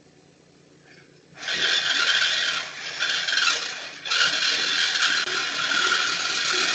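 A power tool cutting through a car's metal exhaust pipe to remove the catalytic converter. The harsh rasping cut starts abruptly about a second and a half in and breaks off briefly twice.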